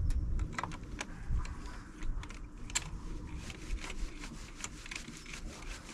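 Light, irregular metal clicks and taps as an 8 mm nut is run onto the 100 amp fuse's terminal in a car fuse box with a small socket tool.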